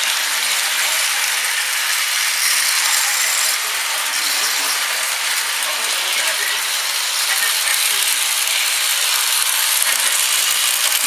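Lionel 2026 toy steam locomotive and its freight cars running on track: a steady mechanical whirring and rattling of the motor gears and wheels.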